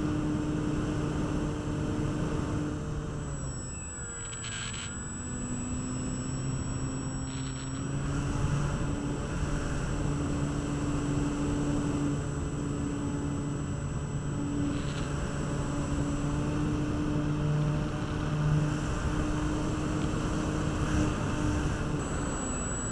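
RC model Glasair Sportsman's motor and propeller droning steadily in flight, picked up by the onboard camera with air rushing past the microphone. The pitch drops for a few seconds about three seconds in as the throttle eases, then climbs back.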